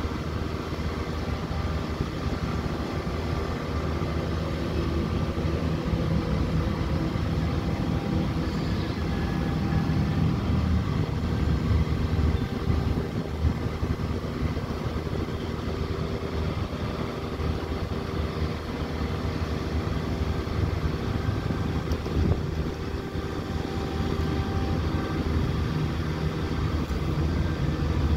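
Mini amphibious excavator's diesel engine running steadily, its level swelling and easing a little as the hydraulics work the boom and bucket.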